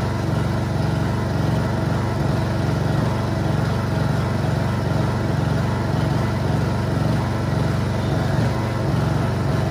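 Honda EU2200i inverter generator's small single-cylinder four-stroke engine running after a carburetor cleaning, a steady hum with a slight regular pulse in it. It still has a little hesitation, which the owner puts down to old gas.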